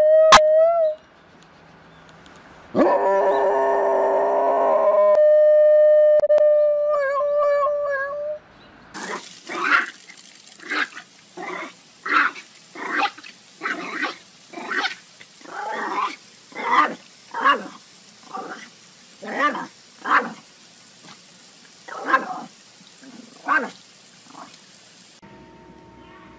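Golden retriever howling in long held notes, with a louder, fuller stretch a few seconds in. Then a dog barks over and over, a little faster than once a second, over a steady hiss.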